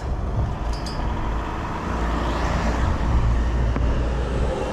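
Road traffic noise: a vehicle passes close by, its sound swelling and fading about two to three seconds in, over a steady low rumble.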